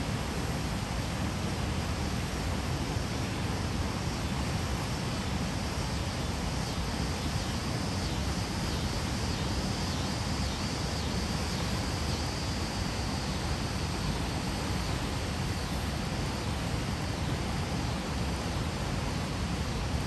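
River waterfall: a steady, unbroken rush of falling water.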